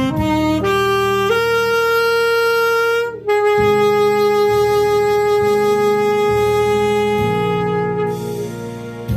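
Alto saxophone playing a slow melody over a backing track: a few short stepping notes, then one long held note from about three seconds in that fades away near the end.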